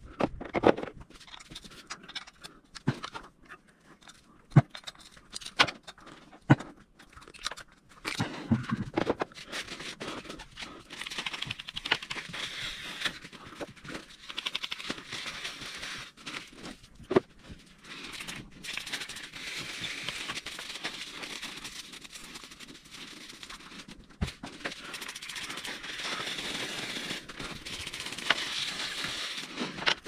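Tools and small parts clicking and knocking as they are picked up and handled. Then a paper towel rubs over a bicycle disc brake rotor in stretches of a few seconds, wiping grime off the disc.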